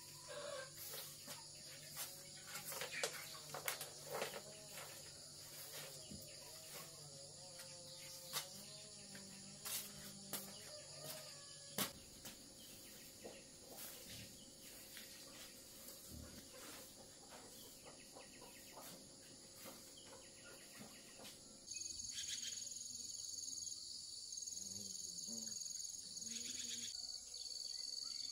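Insects trilling steadily, with scattered clicks and knocks through the first half. About 22 seconds in, the sound changes abruptly to a louder, high insect trill that breaks on and off.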